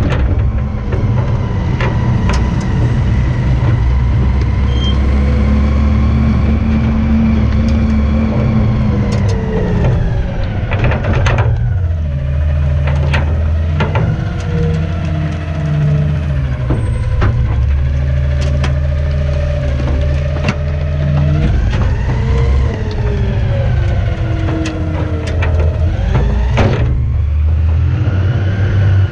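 Garbage truck's engine running loudly, its pitch falling and rising again as the engine speed changes, with scattered sharp clanks and knocks.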